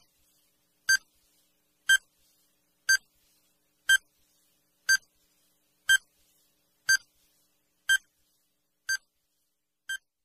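Countdown timer sound effect: a short electronic beep once a second, eleven in all, the last two quieter.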